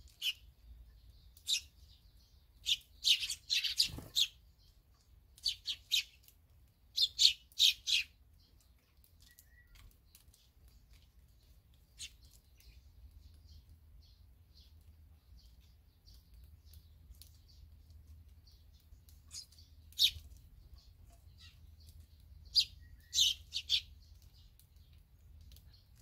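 Barn swallows chirping: short, high chirps in quick clusters through the first eight seconds, then again from about twenty seconds in.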